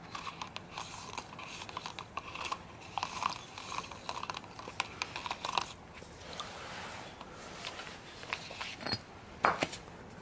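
Brass faucet handle on a rod being swished in a plastic cup of baking soda and water to neutralise solder flux acid: many small, irregular clicks and taps of metal against the cup, with faint liquid sounds. Two louder knocks come near the end.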